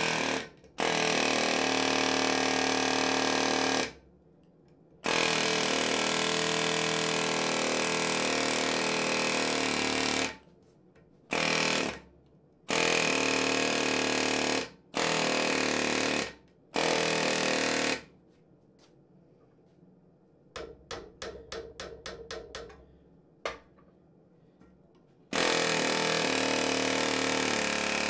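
Pneumatic air hammer chiselling hot steel: a loud, continuous rattle in bursts of several seconds that start and stop abruptly, with a run of about a dozen separate blows, roughly five a second, about two-thirds of the way through.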